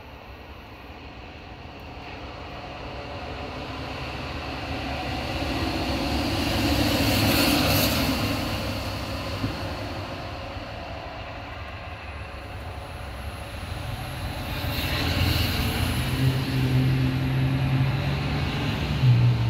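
A vehicle passes by, its sound swelling to a peak about halfway and fading. Then a second vehicle approaches, with a steady low engine hum growing louder near the end.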